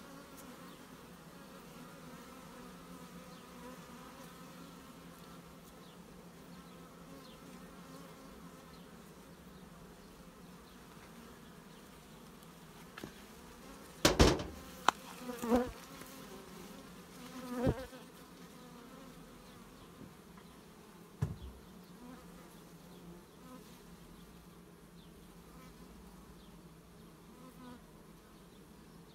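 Carpathian honeybees buzzing steadily around an open hive. A few sharp knocks come in a cluster about halfway through, with one more shortly after.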